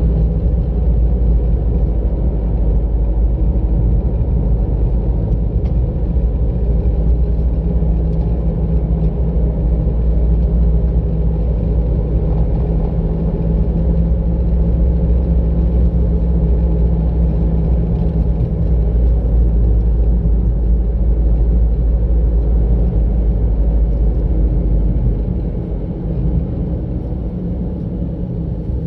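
A car driving along a road, heard as a steady low rumble of engine and tyres. It gets somewhat quieter about 25 seconds in.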